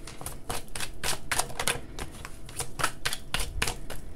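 Oracle card deck being shuffled by hand: a quick, irregular run of card flicks and clicks, about four or five a second, with a brief lull near the middle.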